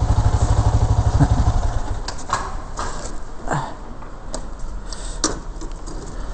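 Harley-Davidson MT350's single-cylinder engine running with a fast, heavy low beat that eases off about two seconds in as the bike moves off, followed by a run of sharp clicks and knocks.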